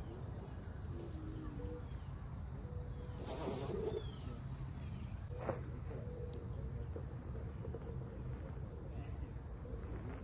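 Outdoor insect chorus: a steady high drone over a low, even rumble, with a couple of faint knocks about three and a half and five and a half seconds in.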